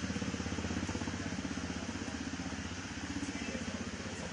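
A small engine idling, a rapid, even chugging, over a steady hiss.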